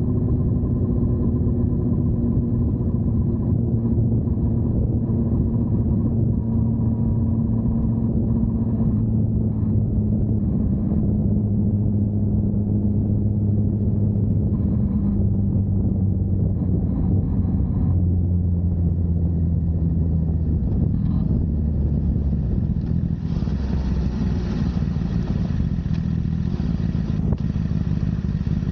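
Honda CBR1000RR's inline-four engine with a Yoshimura exhaust running on the move, its note falling slowly over the first twenty seconds or so. A rushing hiss joins in over the last few seconds.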